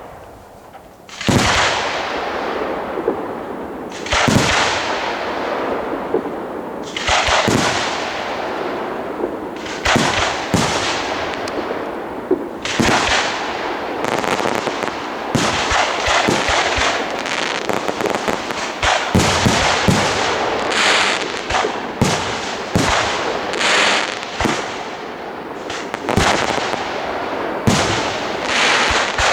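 Aerial fireworks display: shells bursting one after another, each bang trailing off in a long fading hiss. The bursts come a few seconds apart at first, then thick and fast from about halfway through.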